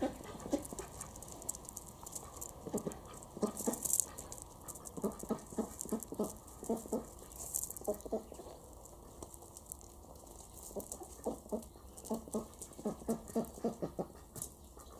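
Paws of a young Barbet dog and small hooves of an Ouessant lamb crunching and scuffling on gravel as the two play, in irregular quick runs of steps. A couple of brief rustles come in among them.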